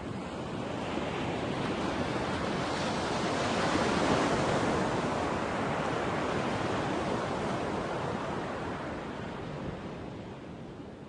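Ocean surf rushing onto a beach, a steady wash of waves that swells about four seconds in and then slowly fades away near the end.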